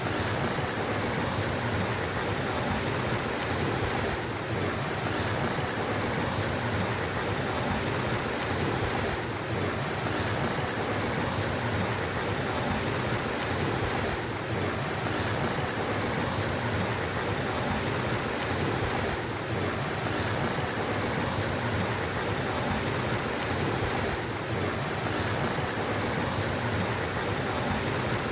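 Flowing water rushing steadily, an even continuous wash of noise with a slight dip about every five seconds.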